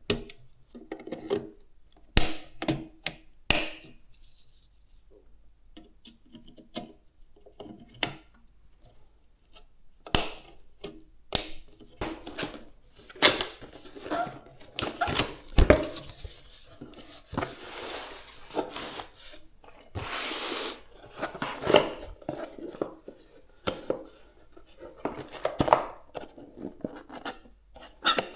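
Hands handling computer parts and their packaging: scattered sharp clicks, taps and knocks of plastic and metal, with longer stretches of rubbing and rustling in the middle.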